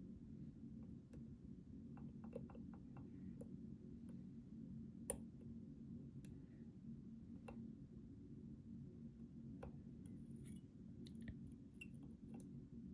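Faint, scattered small clicks of lock picks and a tension tool working the pins of a Schlage Primus Everest cylinder, with one sharper click about five seconds in, over a steady low hum.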